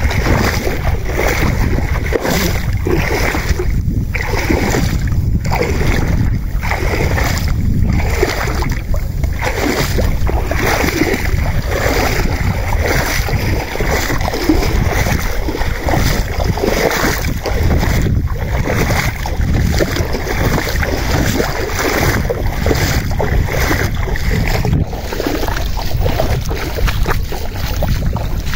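Feet wading through shallow seawater, a splash with each stride about once a second, under a steady rumble of wind on the microphone.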